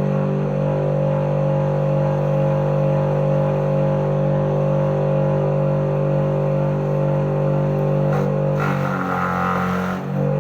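Electric motor salvaged from a water pump, driving a homemade grass chopper, running at speed with a steady hum. Near the end the hum dips and a rougher hiss joins for about a second and a half, then the steady hum returns.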